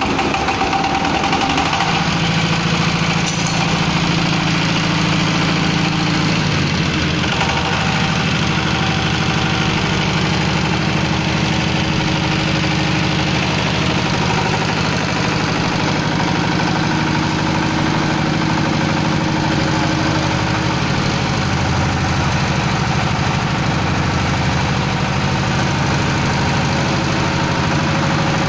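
Large fish-feed mixing machine's motor running steadily with a constant mechanical hum, loud from the start.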